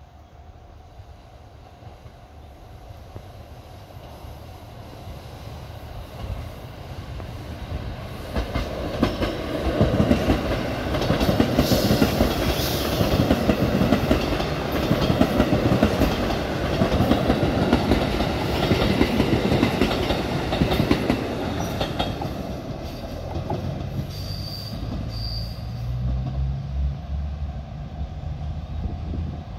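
KiHa 85 series diesel multiple unit running past: engine drone and the rumble of wheels on rail grow from about six seconds in, are loudest from about ten to twenty-one seconds, then ease off. A lower, steady engine hum is left near the end.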